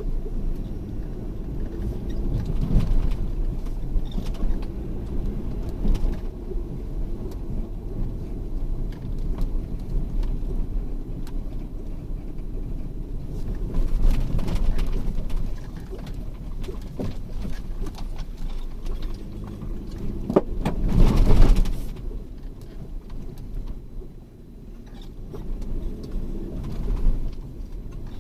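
A motor vehicle's engine running steadily as it drives over rough ground, with scattered knocks and rattles and a louder rush of noise about three quarters of the way through.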